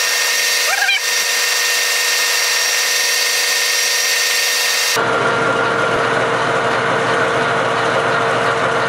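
Metal lathe running with a parting tool cutting into the spinning workpiece to part it off: a steady machine whine with a few level tones, and a short squeal about a second in.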